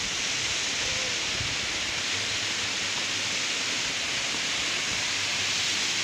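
Narrow waterfall splashing down onto rocks: a steady, unbroken rush of falling water.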